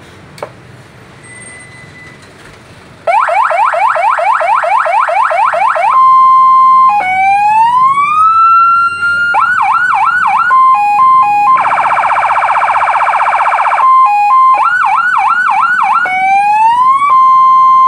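Electronic police siren from the TBD-8300 lightbar's built-in speaker, switched on about three seconds in and stepped through its tones: a fast yelp, a steady tone, a slow rising wail, a hi-lo two-tone and a harsh buzzing horn, then yelp and rising wail again. Before it starts there is only low room noise and a single click.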